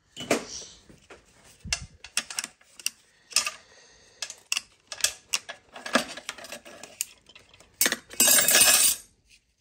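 Loose metal tools and parts clinking and clanking in a run of separate sharp knocks, then a loud rattling scrape lasting about a second near the end.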